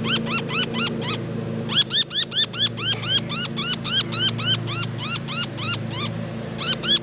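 A small bird that a cat has caught calling with rapid, repeated high chirps, about four or five a second, in runs broken by short pauses about a second in and again near the end. A steady low engine hum runs underneath.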